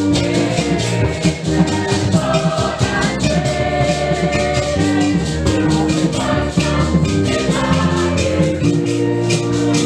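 Music with a steady shaken-rattle beat over held instrumental or sung notes.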